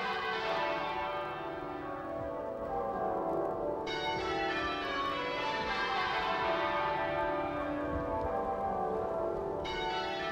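Westminster Abbey's ring of church bells pealing in change ringing, the bells striking one after another in repeated descending rows.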